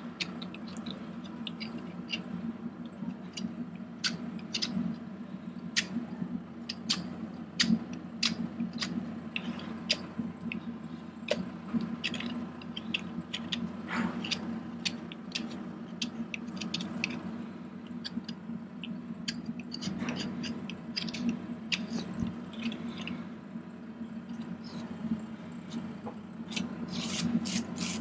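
Irregular clicks and scrapes of hoof work over a steady low hum. Near the end a farrier's rasp starts filing the hoof in quick, even strokes.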